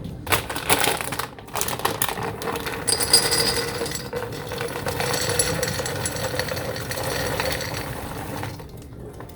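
Roasted almonds poured into a container: a spatter of clicks, then a steady, dense rattle of nuts falling onto nuts that thins out near the end.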